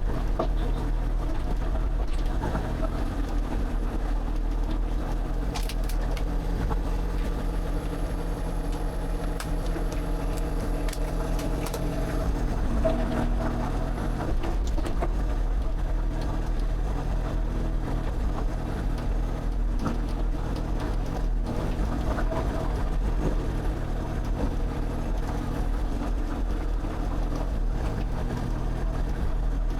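Excavator's diesel engine running at a steady speed.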